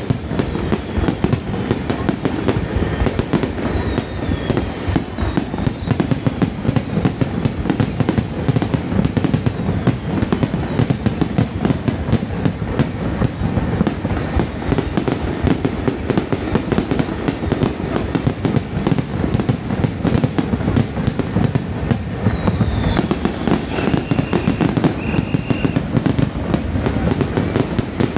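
Aerial fireworks going off in a dense, unbroken barrage: many shell bursts a second, overlapping bangs and crackling throughout.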